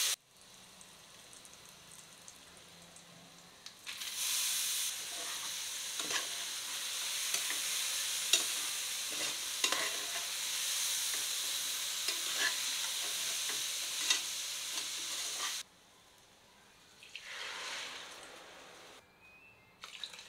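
Soaked basmati rice sizzling in hot ghee in an aluminium pressure cooker as it is stirred and sautéed, with the spoon clicking and scraping against the pot. The frying is quiet at first, jumps to a loud sizzle about four seconds in as the rice goes in, and cuts off suddenly; a shorter burst of hiss follows near the end.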